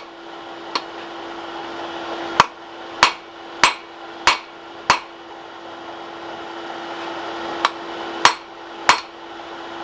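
Hand hammer blows on a hot bar of high-carbon steel on the anvil: a run of five even strikes, a pause, then three more, with a steady hum underneath. The blows work the oversized end of the bar back down.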